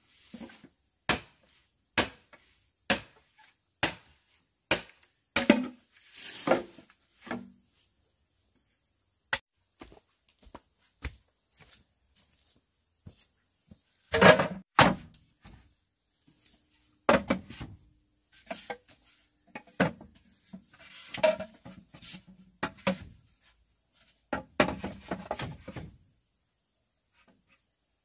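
Chopping with a blade: single sharp knocks about once a second for the first few seconds, then, after a pause, irregular bursts of quicker chops and knocks.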